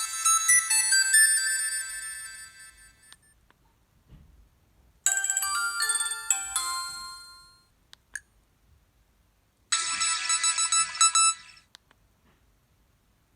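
Alcatel OT-660 flip phone playing its preloaded ringtones one after another through its small speaker: high-pitched electronic melodies. One dies away over the first three seconds, another plays from about five seconds in, and a third plays near the end, with a short beep and silent gaps in between.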